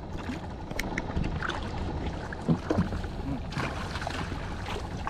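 Steady low rumble of water and wind around a small boat on the sea, with a few faint, distant voices and light knocks.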